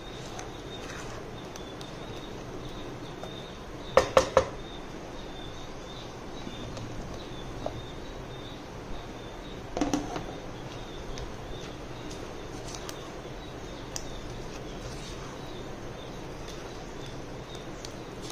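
Wooden spatula stirring and scraping thick curry paste in a pot, over a steady background hiss with a faint high whine. Three sharp knocks come close together about four seconds in, and a short clatter about ten seconds in as halved mushrooms are tipped into the pot.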